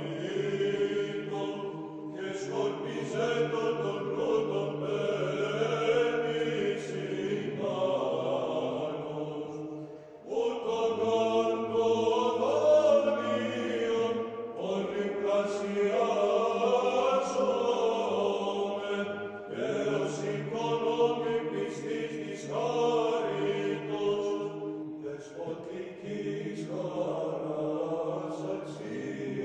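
Greek Orthodox Byzantine chant in the plagal second mode: a chanted melody over a held low drone (ison), with a short break about ten seconds in.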